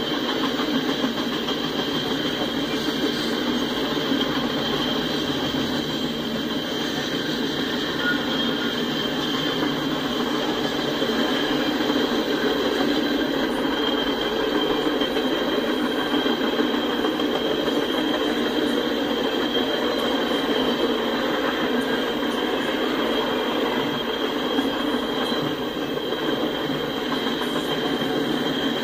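Freight cars (boxcars, tank cars and covered hoppers) rolling steadily past, steel wheels running on the rails, with a steady high-pitched wheel squeal.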